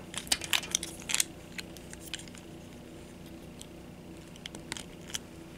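Hard plastic parts of a Transformers Studio Series 86 Hot Rod action figure clicking and ticking as it is handled: a quick cluster of small clicks in the first second or so, a few scattered ticks, then more clicks near the end.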